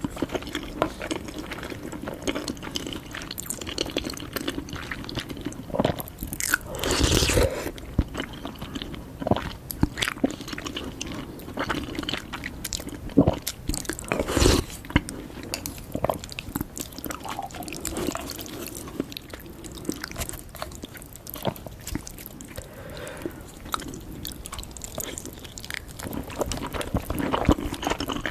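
Close-miked eating sounds: a person chewing and biting noodles, with irregular wet mouth clicks and smacks throughout and a longer noisy burst about seven seconds in.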